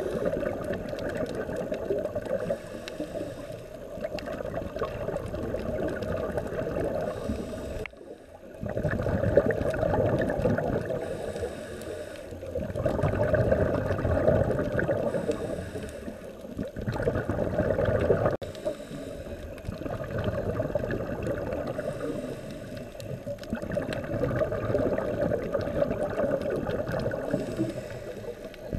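Underwater sound of a scuba diver's exhaled bubbles gurgling from the regulator. It comes in waves every few seconds, with quieter pauses between breaths.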